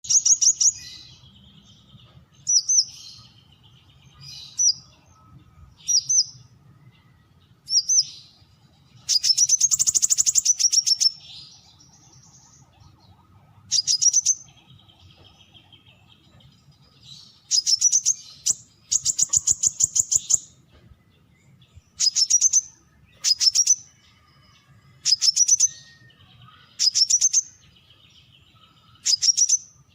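Brown-throated sunbird singing: short, high, rapid stuttering phrases repeated every couple of seconds, with two longer, drawn-out runs of notes, one about ten seconds in and one around eighteen to twenty seconds.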